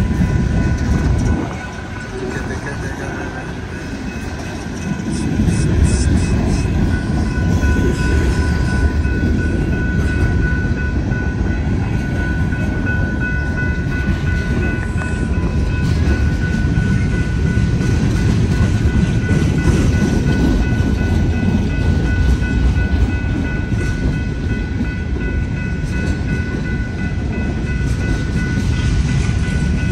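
Empty coal cars of a freight train rolling past at a grade crossing: a heavy, continuous rumble and rattle of wheels on rail, dipping a little early on and then building again. Over it, a steady ringing that fits the crossing signal's bell.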